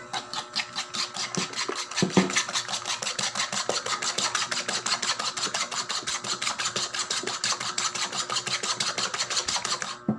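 Metal spoon beating raw eggs with chopped tomato, onion and garlic in a bowl: rapid, even clicking strokes of the spoon against the bowl, with a louder knock about two seconds in, stopping abruptly near the end.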